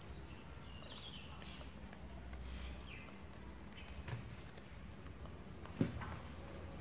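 Faint bird chirps in the background, with soft taps and one sharper click near the end as flower stems are handled and pressed into a leaf krathong.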